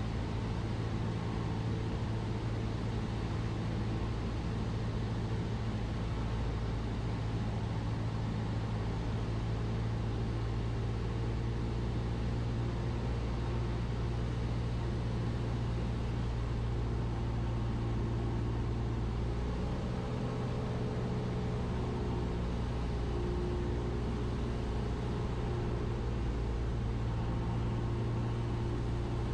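Cessna 172's piston engine and propeller droning steadily in cruise descent, heard inside the cockpit as a deep, even hum. Its tone shifts slightly about twenty seconds in.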